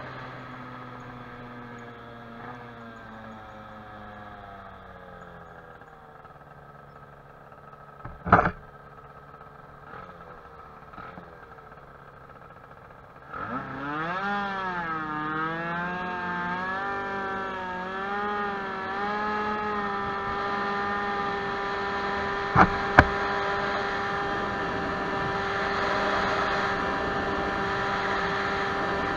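Tuned two-stroke scooter engine (Stage6 Racing 23 hp High End kit on a Baotian Falcon 50R) heard on board: its pitch falls as the scooter slows and it runs low and quiet, with a sharp knock about eight seconds in. Around halfway it revs up hard, the pitch wavering as it pulls away, then holds a steady high-revving whine with two sharp clicks a little later; the owner says it is running a bit rich in the heat.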